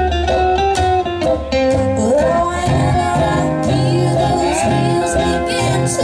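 Live country-bluegrass music: a woman singing a melody while picking an F-style mandolin, with low bass notes underneath.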